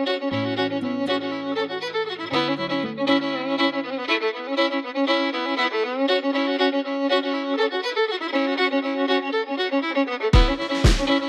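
Background music led by a fiddle, with low bass notes in the first few seconds and a steady kick-drum beat coming in near the end.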